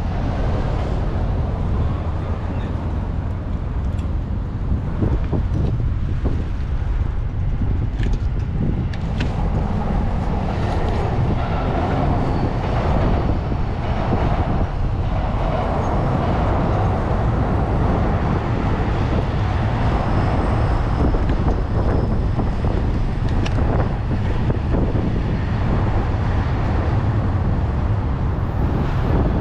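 City street traffic, cars and trucks passing steadily, with low wind rumble on the microphone. The traffic noise swells for a few seconds around the middle.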